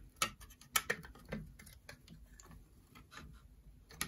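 Light, irregular metal clicks and taps as a steel carburetor control plate is fitted against a Honda GCV engine and a bolt is started by hand.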